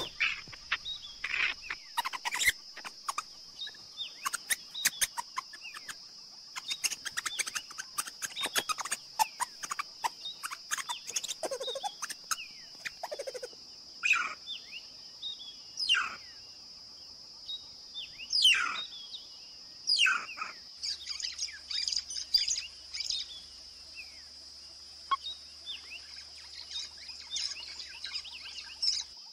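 Birds chirping: many short clicks and chirps, then several quick falling calls, over a steady high-pitched tone.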